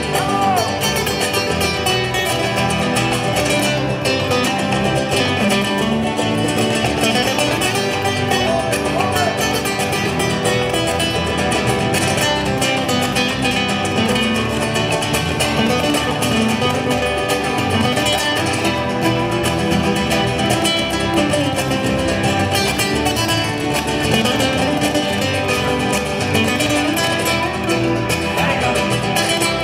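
Two acoustic guitars playing together as a duet through a small amplifier, a steady stream of plucked notes and chords in a Latin, flamenco-like style.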